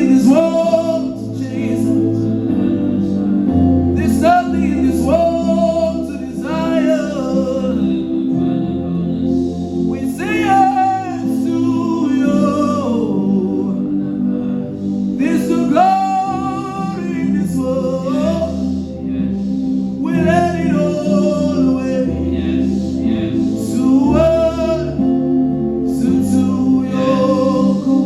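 Gospel worship music: a voice singing long phrases that glide between notes over steady sustained chords and a slow bass line.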